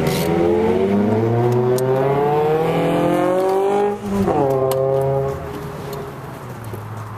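A car engine revving up under hard acceleration, its pitch rising for about four seconds. After a brief drop about four seconds in it rises again, which fits a gear change, and then it fades as the car pulls away.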